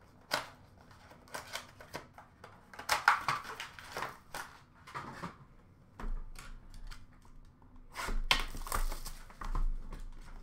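Trading cards and cardboard packaging being handled and set down on a glass counter: irregular rustles and light taps in bursts, the busiest about three seconds in and again near the end.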